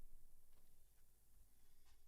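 Near silence, with a few faint light clicks of something being handled.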